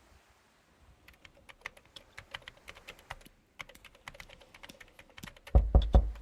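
Typing on a computer keyboard, a quick run of light key clicks, followed near the end by three loud knocks on a door.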